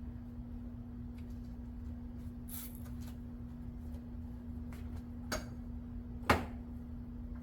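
A few scattered light clicks and knocks over a steady low hum, the loudest a sharp knock about six seconds in.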